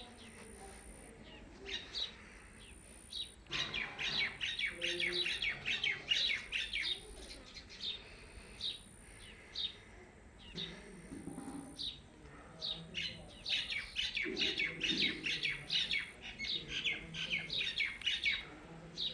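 Blue Indian ringneck parakeet calling: rapid runs of sharp chirps, about five a second, twice for several seconds at a time, with scattered single calls in between.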